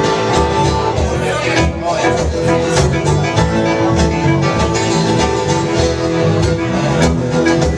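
Live band playing an instrumental passage, loud and steady.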